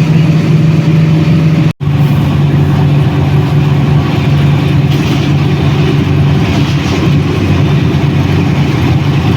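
Diesel-electric locomotive's engine running steadily under way, heard from on board, a strong even drone. The sound cuts out for an instant about two seconds in.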